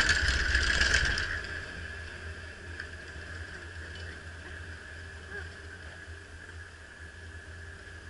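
Chairlift ride: a loud rattling clatter for about the first second as the chair passes a lift tower's sheave wheels, then a steady low rumble with a faint steady high hum.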